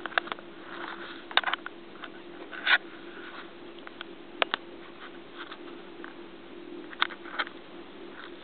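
Fingertips tapping on the surface of a homemade 22-inch LCD multitouch screen: scattered sharp taps, several in quick pairs, over a steady low hum.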